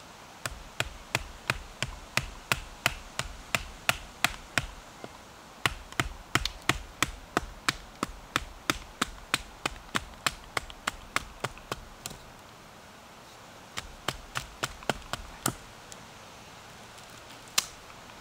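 Sharp, evenly spaced taps, about three a second, in runs that stop and start, with one louder single tap near the end.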